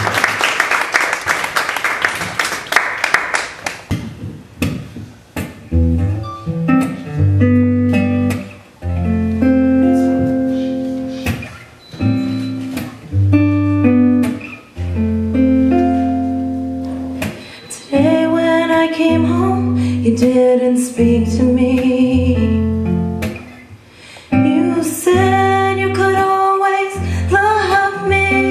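Audience applause fading out over the first few seconds, then live guitar music starts with deep bass notes under it. Wordless singing joins in about halfway through.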